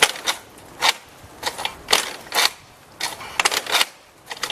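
Irregular clusters of sharp mechanical clacks and rattles, coming about once a second, with no engine running.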